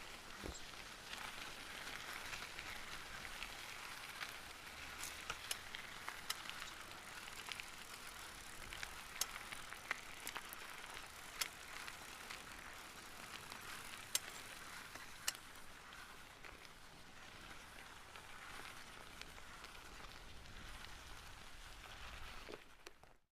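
Light rain falling: a faint steady hiss with scattered sharper drips, cutting off suddenly near the end.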